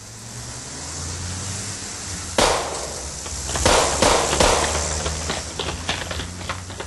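Sound-effect bed for a radio-style drama: a low hum fades in, then a single loud bang about two and a half seconds in, followed a second later by a cluster of three sharp bangs like shots or firecrackers and a scatter of smaller cracks and clicks.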